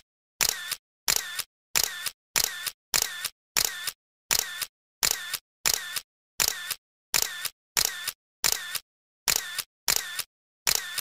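Camera shutter sound effect firing over and over in an even rhythm, a sharp double click (shutter opening and closing) roughly every 0.6 seconds.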